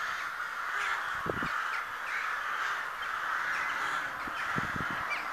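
A large flock of crows cawing together in a dense, unbroken chorus. A couple of short low thuds come about a second in and again near the end.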